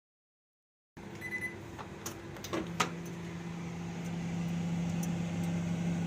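Microwave oven starting and running: about a second in, a short beep and a few sharp clicks, then the steady low hum of the oven heating a bowl of water, slowly growing louder.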